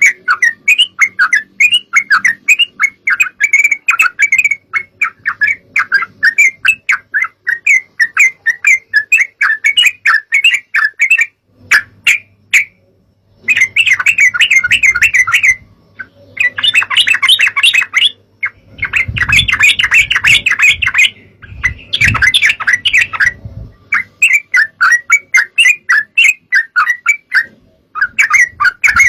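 Yellow-vented bulbul (trucukan) chattering in fast runs of short, sharp notes, with a few brief breaks. A low rumble sits under the calls for a few seconds past the middle.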